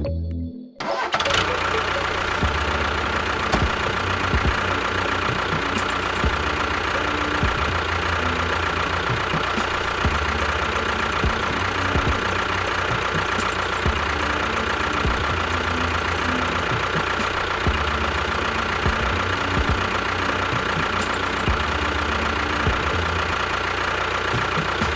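An engine or motor running steadily with no break, with a steady whine in it. It starts about a second in after a brief drop in level.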